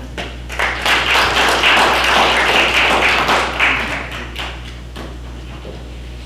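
Audience applauding: a dense patter of many hands that builds within the first second, holds for about three seconds and dies away.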